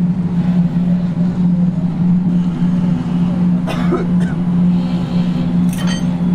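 Steady drone of a running motor or machine, a constant low hum that does not change, with a few short light knocks about four and six seconds in.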